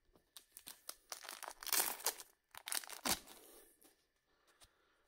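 Wixoss booster pack wrapper being torn open and crinkled, loudest about two seconds in, then a few faint ticks as the cards are handled.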